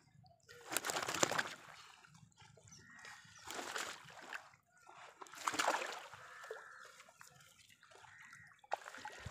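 Water splashing and dripping as a wet fishing net is hauled by hand over the side of a small boat, in about four separate bursts.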